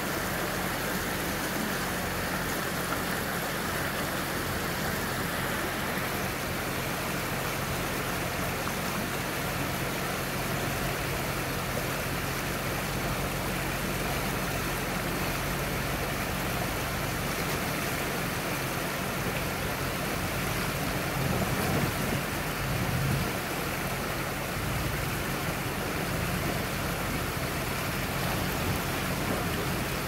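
Rushing river water, steady throughout, with a low vehicle engine hum underneath that swells louder for a couple of seconds about two-thirds of the way through as the Range Rover Sport wades through the river.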